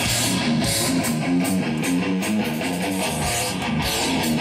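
Heavy metal band playing: a distorted electric guitar riff of fast repeated low notes over a steady beat, with no vocals.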